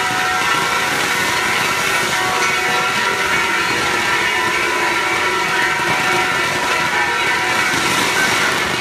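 Festival spark-shower fireworks pouring out a continuous loud hissing rush, with several steady whistling tones running through it.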